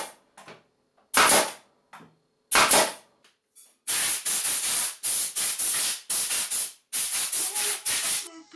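Pneumatic nail gun firing, sharp shots about a second and a half apart. From about four seconds in, an air blow gun gives a rapid series of short, hissing blasts of compressed air.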